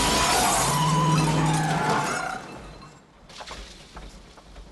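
Car crash: breaking glass and crunching metal from a side-on collision between two cars, dying away about two and a half seconds in to faint scattered clicks of falling debris.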